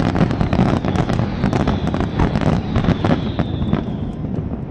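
Fireworks display: a dense, rapid barrage of aerial shell bursts and crackling bangs, several a second, with a faint high whistle falling slightly in pitch through the middle.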